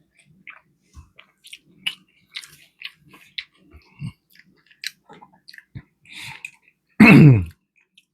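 Close-miked chewing of a fish sandwich: wet mouth clicks and lip smacks at irregular moments. About seven seconds in comes a short, louder vocal sound that falls in pitch.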